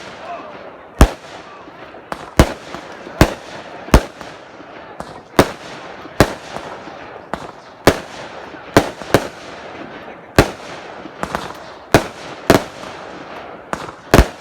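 Fireworks exploding all around: an irregular string of sharp bangs, roughly one a second, each with a short echoing tail.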